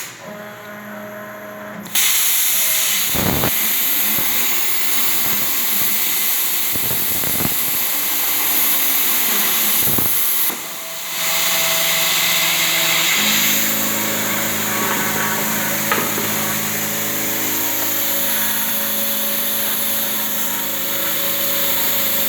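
Plasma cutter running: a loud, steady hiss of the arc and compressed air that starts abruptly about two seconds in and dips briefly about halfway, with a steady machine hum underneath.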